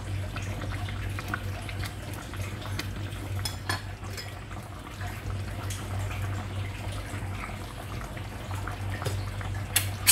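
A pot of green coconut-milk chicken curry simmering, left to thicken: small bubbling pops over a steady low hum, with a couple of sharper clicks near the end.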